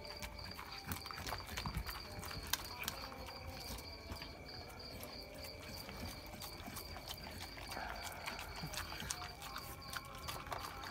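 Pit bull eating chicken and rice from a steel bowl: a run of quick, irregular smacking and chewing clicks as he gulps the food.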